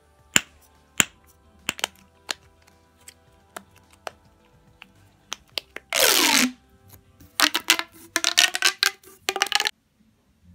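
Plastic fidget toys worked by hand: a string of sharp pops from a squeezed grip popper, about one every half second to second. About six seconds in comes a falling whoosh, then a run of ringing, crackling sounds as corrugated pop tubes are stretched and squashed, which stops suddenly.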